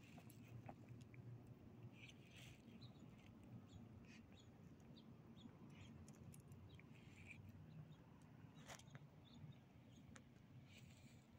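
Near silence: faint outdoor background with a low steady hum and scattered faint ticks and brief high chirps, with a slightly sharper click near the end.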